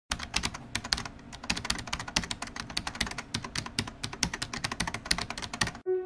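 Rapid, irregular clicking, about ten sharp clicks a second, which stops abruptly just before the end, where soft music comes in.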